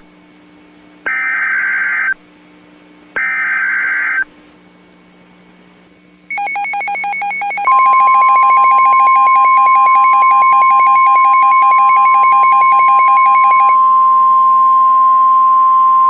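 NOAA Weather Radio emergency alert signal: the last two of three harsh digital SAME header bursts, each about a second long and a second apart, announcing a severe thunderstorm warning. About six seconds in, the weather radio starts a rapid electronic alarm beeping. From about eight seconds in, the steady single-pitched Warning Alarm Tone joins it and holds.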